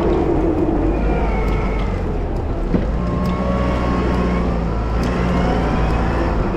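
Volvo wheel loader's diesel engine running steadily under load while plowing snow, with whining tones that rise and fall and a single click a little under three seconds in.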